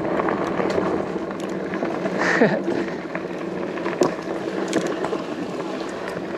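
Fat-tire electric bike coasting on a dirt track: the rear freewheel ticks rapidly as the wheels turn without pedaling, over the rolling noise of the tyres.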